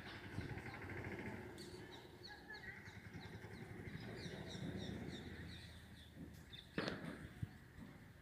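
Birds chirping and calling in quick, high, repeated notes, faint, over a low outdoor background, with one sharp click about seven seconds in.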